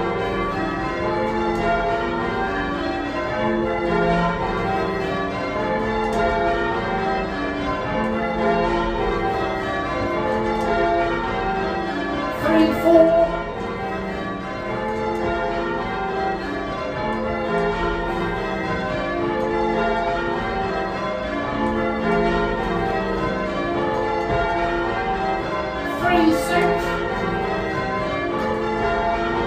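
Eight church bells rung full-circle in changes, each bell striking in turn in a steady, continuous rhythm. They are a Gillett & Johnston octave with two older Thomas Wroth bells tuned to match, hung in a cast iron frame, with the tenor in F.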